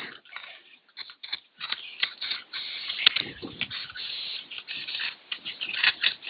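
Aerosol can of Blaster penetrating oil spraying in several short bursts, with scattered clicks between them, as the oil is worked into a seized excavator drive sprocket to loosen it.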